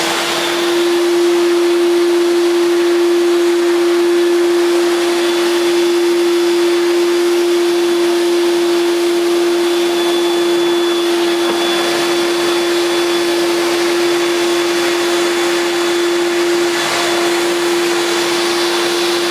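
Hoover Portapower 800 (S1248) portable 800-watt vacuum cleaner running steadily, its motor giving one even whine over a rush of air as it sucks through the hose and wand over carpet.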